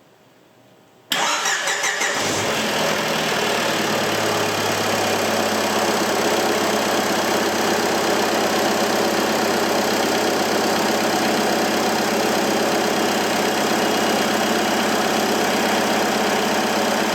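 Diesel engine fitted with a rebuilt BV43 turbo is cranked by the starter about a second in, catches after roughly a second of cranking, and settles into a steady idle.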